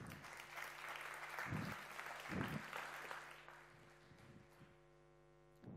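Audience applauding, dying away after about four seconds, with a couple of low thumps in the middle.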